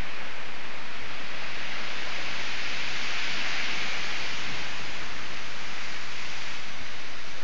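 Rough sea churning and breaking against shore rocks, whipped up by a strong libeccio (south-westerly) gale: a steady loud rushing of surf and wind that swells about halfway through.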